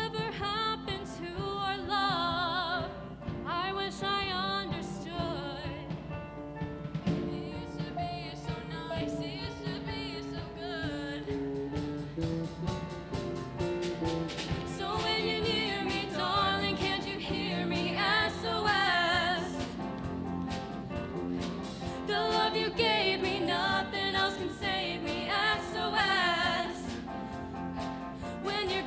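Live band music with female voices singing with vibrato over piano, drum kit and electric guitar.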